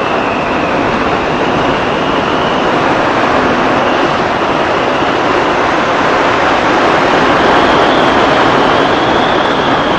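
Wind rushing over the microphone of a motorcycle cruising at a steady road speed, with the engine running underneath and a faint high whine that rises slightly near the end.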